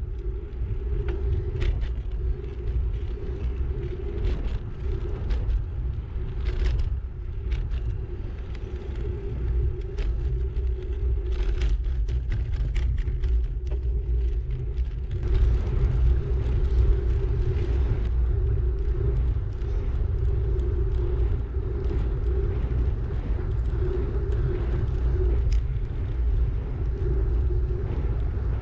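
Wind buffeting the microphone of a camera on a moving bicycle: a steady low rumble, with a steady hum above it and occasional light clicks. It gets a little louder about halfway through.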